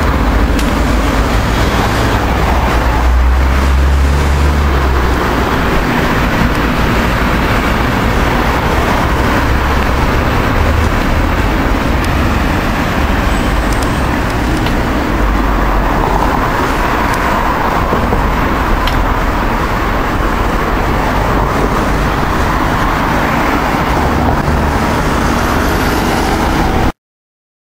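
City street traffic heard from a moving bicycle, with a heavy low rumble of wind on the microphone throughout. It cuts off suddenly near the end.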